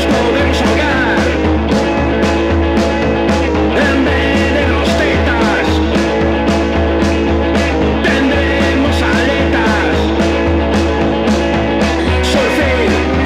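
Instrumental surf rock from a garage band, playing continuously with a steady drum beat and bass under gliding guitar lines.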